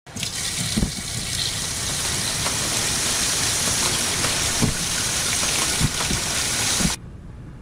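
Water running steadily from a tap with a full, even rush, broken by a few dull knocks. It cuts off suddenly near the end.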